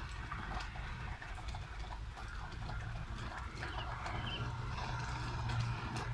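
Steady rain falling, with many irregular drops tapping sharply on hard surfaces close by. Beneath it a low hum grows louder in the last couple of seconds.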